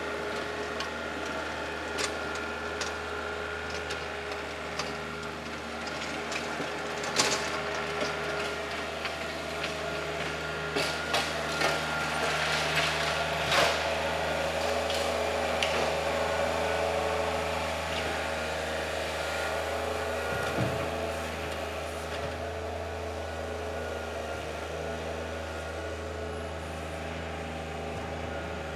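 Compact tractor's engine running steadily while its rear-mounted rotary tiller churns up the soil. Scattered knocks and clicks, busiest about halfway through.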